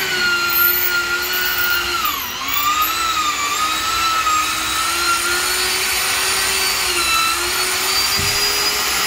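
An electric power tool running continuously with a steady whine. Its pitch sags briefly under load about two seconds in and again about seven seconds in.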